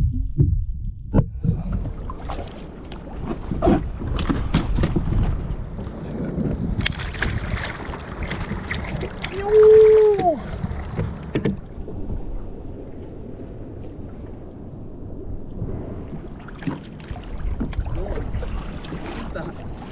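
Water and wind noise on a kayak, with scattered knocks from handling on the hull. About halfway through comes a louder hissing rush lasting a few seconds, with a short rising-and-falling tone in it.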